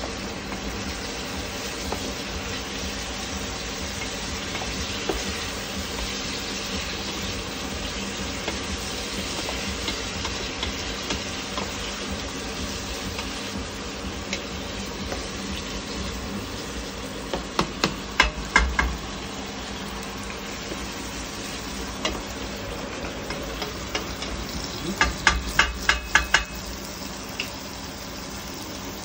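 Onions frying in oil in a pan for a curry base, a steady sizzle. A utensil stirring in the pan knocks against it in two short clusters of sharp clicks, about eighteen and twenty-five seconds in.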